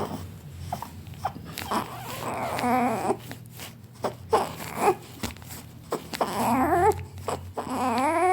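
Baby making fussy, whimpering and squealing noises in short wavering bursts, with a longer drawn-out cry near the end.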